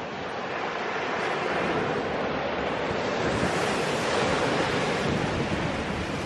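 Sea surf washing onto a sandy beach, with wind buffeting the microphone. The surf grows louder and hissier from about three seconds in.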